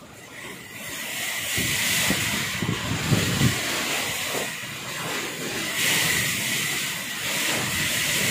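Cyclone wind and heavy rain in a loud, steady rush. Gusts swell from about a second in, and the wind rumbles on the microphone for a couple of seconds after that.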